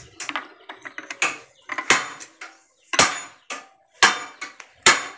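Steel parts of a Suzuki Escudo steering column knocking and clicking as the steering shaft is pressed and slid through its Teflon bushing by hand: a sharp metallic clack about once a second with lighter clicks between.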